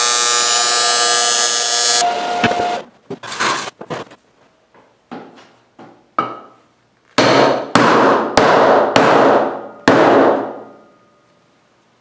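A TIG arc on 1 mm 5052 aluminum sheet buzzes loudly and steadily, then cuts off about two seconds in. A few light clicks of handling follow. In the second half come five hard knocks in quick succession, each ringing briefly in the thin sheet.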